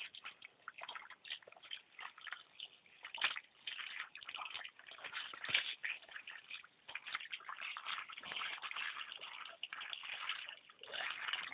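Water splashing, sloshing and dripping in irregular bursts as wiper fish are handled and rinsed during cleaning.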